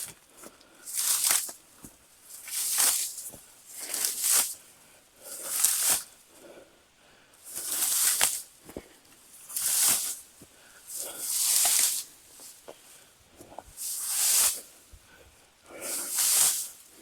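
Tall dry weeds and rye stalks swishing and crunching as they are flattened by a homemade board-and-channel-iron crimper, a stroke about every one and a half to two seconds, with a few sharp snaps of stems in between.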